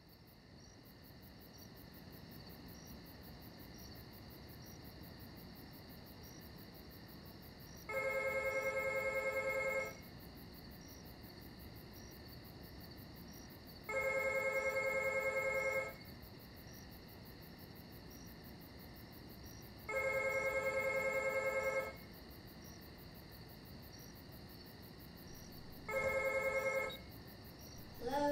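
A telephone rings four times, each ring a warbling tone about two seconds long with about four seconds between rings, over a steady chorus of crickets; the fourth ring is cut short, as when the call is answered.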